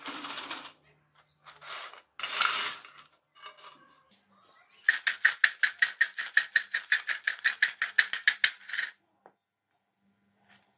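Rice-flour nacho chips rattling in a stainless steel bowl being shaken to coat them with spice mix: two brief rustling tosses, then about four seconds of fast, even shaking, roughly seven rattles a second, with the metal bowl ringing along.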